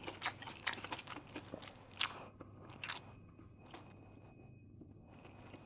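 Close-up chewing of a mouthful of stir-fried chicken mushrooms and pork with rice: sharp wet clicks of chewing, most of them in the first three seconds, then quieter chewing.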